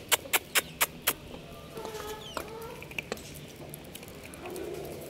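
Quick footsteps on concrete, about five sharp taps in the first second, followed by soft clucking calls from the fowl with a few short rising chirps about two to three seconds in.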